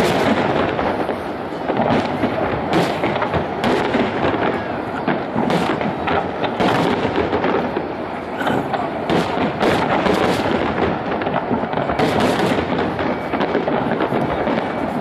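Aerial firework shells bursting one after another in a display: a dense, irregular string of sharp bangs over continuous crackling.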